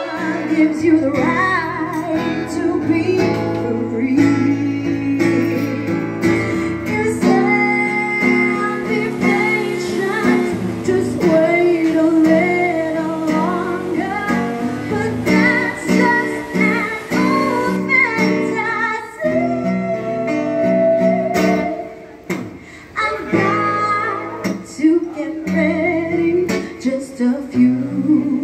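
Background music: a song with strummed acoustic guitar and a woman singing.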